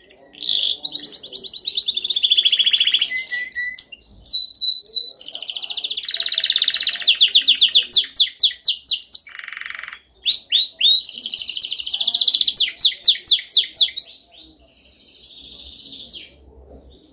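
Domestic canary singing: long phrases of rapid trills and fast repeated notes, broken by short pauses, softer near the end.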